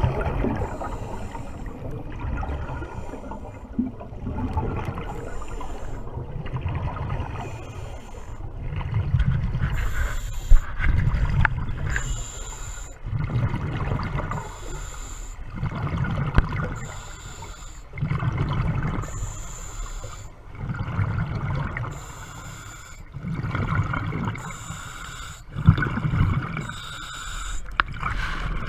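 Scuba diver breathing through a regulator underwater. A short hiss on each inhalation alternates with a low bubbling burst of exhaled air, repeating steadily every two to three seconds.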